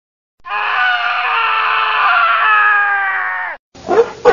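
A loud, long scream-like cry, held for about three seconds and falling slightly in pitch, that cuts off suddenly; near the end short repeated vocal bursts begin.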